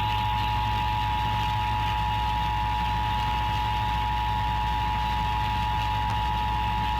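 Emergency Alert System two-tone attention signal: two steady pitches sounded together (853 and 960 Hz), held unbroken over a hissy, humming broadcast background, warning that an emergency alert message is about to be read.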